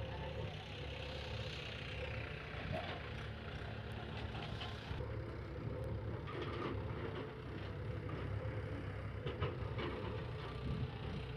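Tractor engine running steadily at a low, even pitch, with a few faint knocks.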